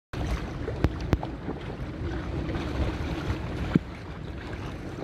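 Wind rumbling on the microphone and water rushing and sloshing around a small sailboat under way, with a few sharp knocks.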